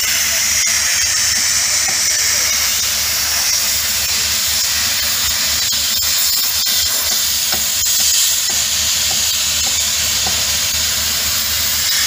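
Steady noise of heavy plant at a concrete pour, from boom concrete pump trucks and transit mixers running. It is heard as an even high hiss over a low hum.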